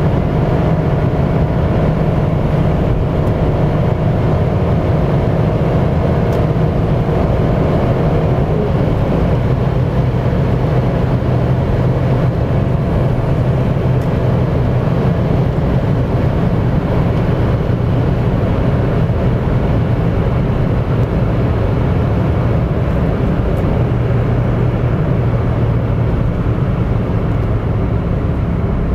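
Inside the cabin of a 2018 Mitsubishi Space Star 1.2, its small three-cylinder engine running hard near top speed (about 175 km/h) under steady wind and road noise. Later the engine note settles lower as the car slows to about 150 km/h.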